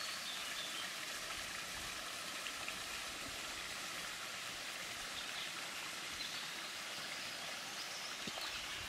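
Steady rushing of a running stream.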